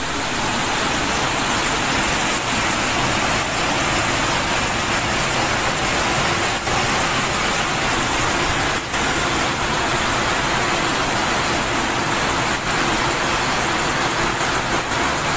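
Flash-flood torrent of muddy water rushing down a street: a loud, steady rushing noise.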